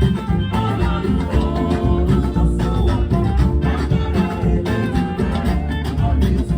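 Background music: an upbeat song with a strong bass line, guitar and singing.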